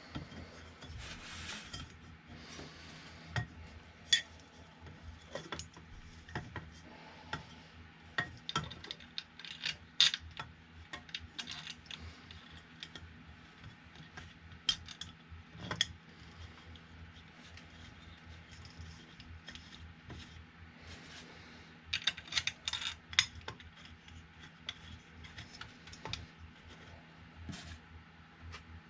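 Irregular clicks, clinks and light knocks of small metal parts and hardware being handled while the 3D printer's frame is put together, with a quick flurry of clinks about 22 seconds in.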